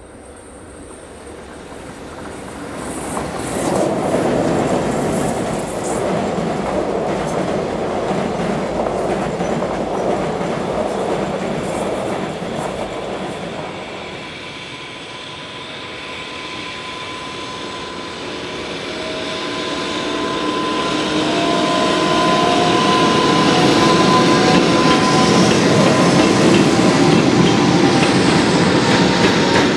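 JR Freight EH500 electric locomotive hauling a container freight train past: the rumble and clickety-clack of wheels and wagons swells up and then fades. A second EH500 then approaches with a high whine from its traction motors, steady and then slightly rising in pitch. It grows loud as the locomotive and container wagons pass close by.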